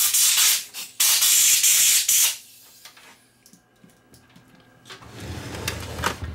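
Compressed-air blow gun hissing in two blasts, the second lasting about a second, directed into a receiver's open tuning capacitor to blow out dust. A few light clicks and knocks follow near the end.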